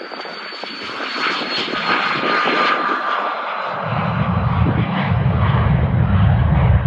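Cessna Citation CJ2's twin turbofan engines at takeoff power as the jet rolls down the runway and lifts off: a rising jet roar with a faint high whine. About four seconds in, a deep rumble sets in beneath it.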